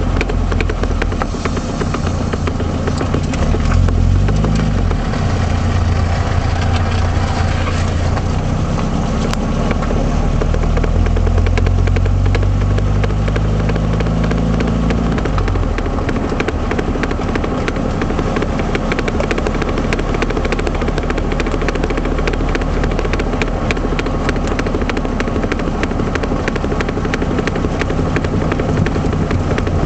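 1978 Triumph Spitfire's four-cylinder engine running with the car on the move, its pitch rising and falling in the first half, over a rapid rear knocking: the sign of a failed passenger-side axle universal joint.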